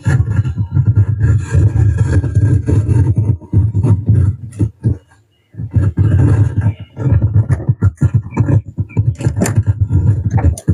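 Audio played through a faulty mixer channel and out a loudspeaker, coming out distorted and crackling with a heavy, boomy bass; the crackle is typical of a fault in the channel. It cuts out briefly about five seconds in.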